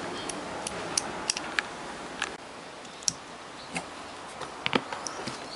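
Irregular light clicks and taps, about a dozen, from a dynamic microphone and its parts being handled on a workbench, over a faint steady hiss.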